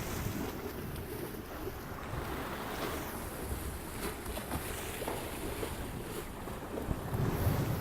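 Wind blowing on the microphone with a low rumble, over the wash of river water; the wind gusts a little harder near the end.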